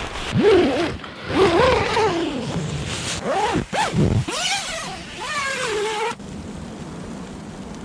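Tent door zipper pulled in four strokes, each gliding up and down in pitch. About six seconds in the sound cuts off suddenly, leaving a steady hiss.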